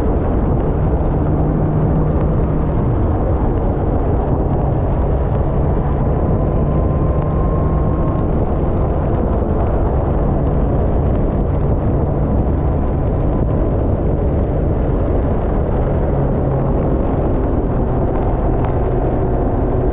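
Motorcycle cruising at a steady speed on a wet road: a loud, steady rush of wind noise over a low, even engine drone.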